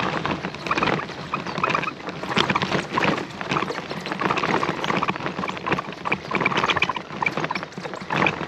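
Bicycle rattling and its tyres crunching over a rough, broken road surface: a dense, irregular run of small clicks and clatters.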